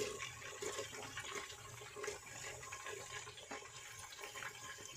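Chopped onions and garlic cloves sizzling in hot oil in a pressure cooker: a steady frying hiss, with a few light clicks as pieces drop in.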